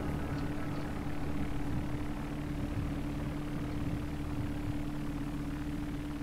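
A steady low mechanical drone, like an idling engine, with a constant hum tone running under it.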